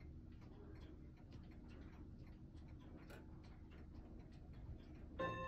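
Mantel clock ticking faintly. Near the end, clear ringing bell-like tones begin.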